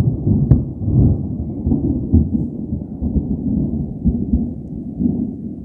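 Loud rolling thunder from a nearby lightning strike: a low rumble that sets in abruptly and surges unevenly, easing toward the end. A single sharp click sounds about half a second in.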